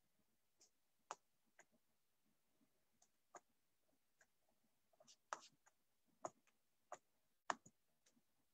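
Near silence broken by faint, irregular clicks and taps, about a dozen, the loudest about five and seven and a half seconds in.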